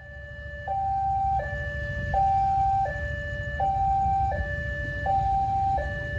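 Two-tone electronic warning signal switching back and forth between a higher and a lower tone about every three-quarters of a second, over a steady low rumble.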